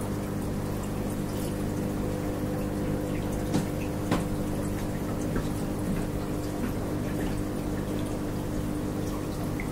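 Aquarium filter running: a steady motor hum under water trickling and bubbling into the tank, with two small clicks about four seconds in.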